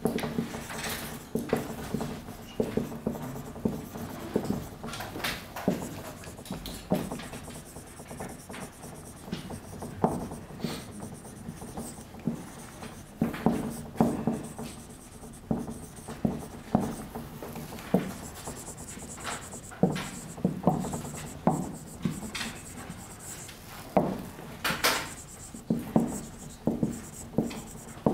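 Marker pen writing on a whiteboard: a run of short, irregular rubbing strokes as words are written out by hand.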